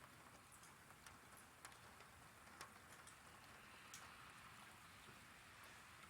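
Faint steady rain, with single drops ticking sharply on a hard surface now and then.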